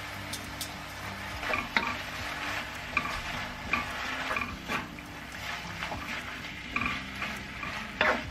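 Octopus and pasta stir-fry sizzling in a frying pan while a wooden spatula stirs and tosses it. The spatula knocks and scrapes against the pan every second or so.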